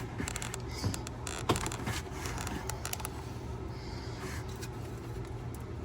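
A few light clicks and handling noises of hands working at a plastic wiring connector, trying to pull it apart, over a steady low hum.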